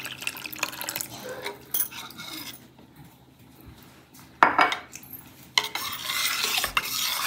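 Water poured from a glass into a stainless steel bowl of liquid, then a steel spoon stirring and scraping against the bowl, with a louder clatter a little past halfway.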